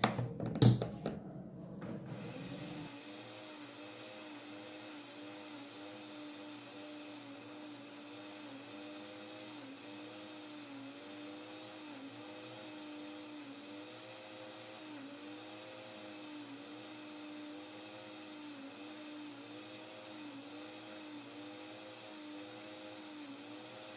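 Philco 1400 W countertop blender running steadily with a liquid pudding batter of milk, eggs and condensed milk, a steady motor hum that wavers slightly and evenly. A sharp click comes near the start as it is switched on.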